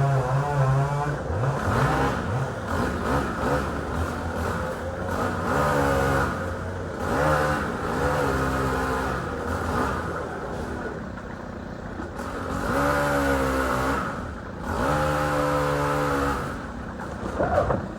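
An engine revs up and down in repeated swells over a steady low running sound.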